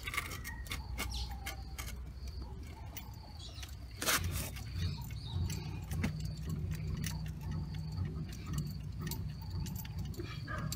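Hand-cranked 3D-printed plastic screw jack being wound up under a car, giving a steady run of small clicks and ticks from the crank and threaded rod, with one louder knock about four seconds in.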